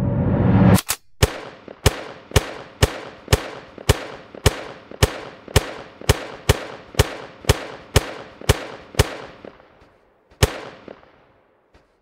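ElevenLabs AI-generated sound effect for a toy water pistol firing: a regular run of sharp pops, about two a second, each with a short ringing tail, and one last pop near the end. Just before the pops begin, under a second in, a rising whooshing rumble cuts off abruptly.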